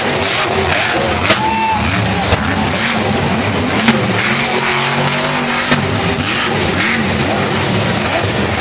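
Monster truck's supercharged V8 engine revving hard and repeatedly as the truck drives over a crushed-car pile, with several short sharp bangs through the run.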